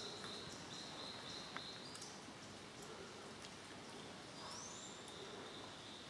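Faint tropical rainforest ambience: a high, thin, steady tone that comes and goes in stretches, and a short rising whistled call about four and a half seconds in.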